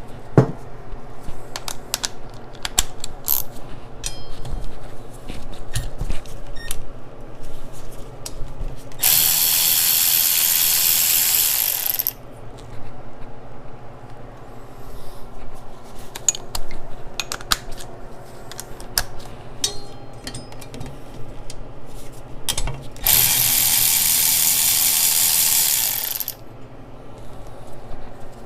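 Hand tools working on engine parts: scattered ratchet and metal clicks, with two steady bursts of a power tool, each about three seconds long, about nine seconds in and again near the end.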